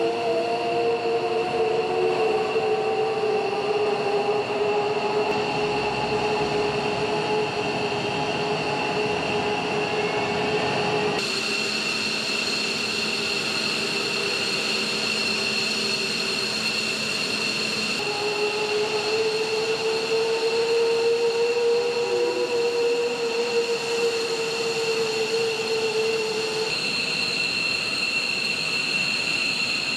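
Fighter jet engines whining at ground idle: a steady high-pitched whine with lower tones that slowly drift up and down in pitch. The mix changes abruptly three times as the shot cuts between aircraft.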